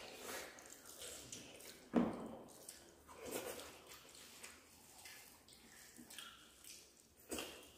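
Wet chewing and lip-smacking of people eating rice and curry by hand, with soft clicks of fingers and food against steel plates. A sharper knock comes about two seconds in and another near the end.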